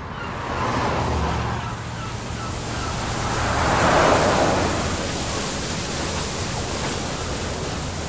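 A car driving past, its tyre and engine noise swelling to its loudest about four seconds in and then fading into a steady hiss, with faint bird chirps near the start.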